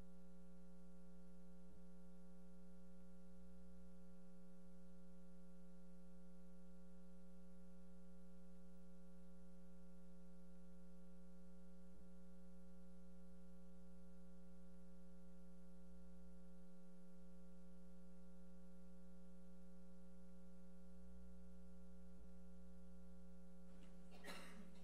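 Steady electrical hum from the meeting room's microphone and sound system: several constant tones held at an even level, with a few faint clicks.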